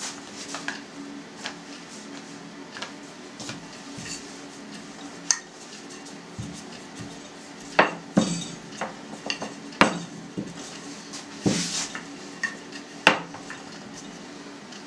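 Wooden rolling pin rolling out thin dough on a hard board, with irregular sharp knocks and clacks as the pin and hands hit the board, louder and more frequent in the second half.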